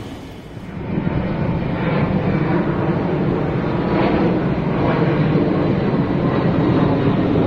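A steady, deep rumbling noise that swells up about a second in and then holds.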